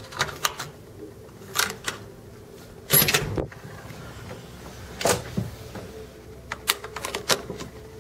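Cabin door key-card lock and lever handle clicking as the door is unlocked and opened, with a louder rush of noise about three seconds in as the door swings, another about five seconds in, and a run of sharp clicks near the end.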